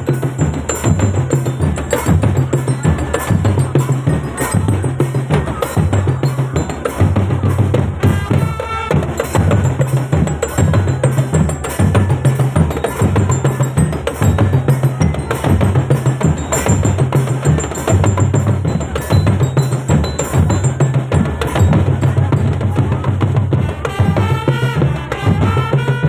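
Marching drum band percussion playing a steady, driving beat: bass drums pounding an even pattern under fast snare-drum rolls and strokes.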